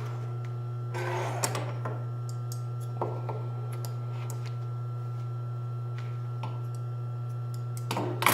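The motor of a Pfaff 545 H4 industrial walking-foot sewing machine hums steadily, with scattered light clicks and a brief rustle about a second in and again near the end.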